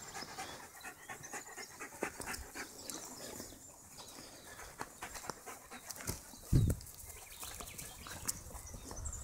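Greyhound panting, with crunching steps on dry grass and dirt throughout and a brief low thump about six and a half seconds in.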